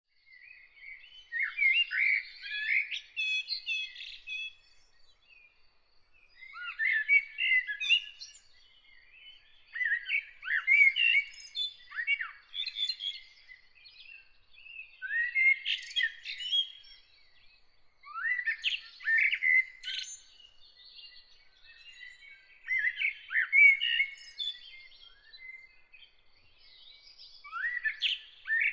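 A songbird singing: warbled phrases of quick rising and falling chirps and whistles, each two to three seconds long, repeated about seven times with short pauses between.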